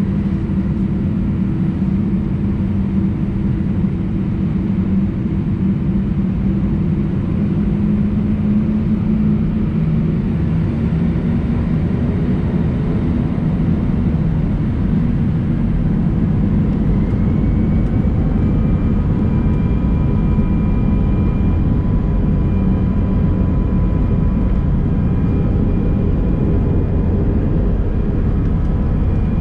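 Airbus A319 jet engine and airframe noise heard inside the cabin: a steady low rumble. About halfway through, a thin engine whine comes in and slowly rises in pitch.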